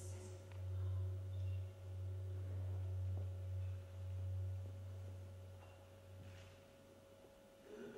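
A low marimba note ringing on after the last stroke: a deep, pure tone that wavers slightly as it slowly dies away over several seconds.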